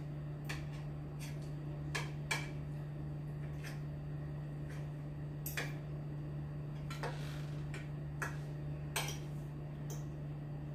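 Spoon and fork clinking and scraping on a plate while eating, about a dozen short, irregular clicks, over a steady low hum.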